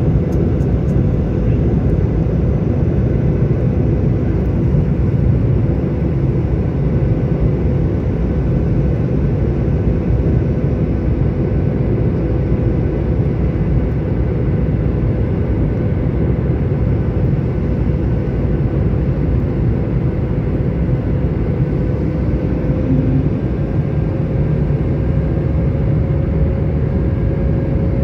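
Jet airliner cabin noise beside the wing-mounted turbofan engine during the approach: a steady roar of engine and airflow with a faint steady whine that rises slightly about three-quarters of the way through.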